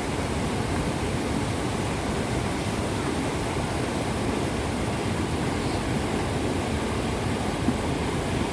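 River water flowing and rushing in a steady, even noise that is deepest in the low end.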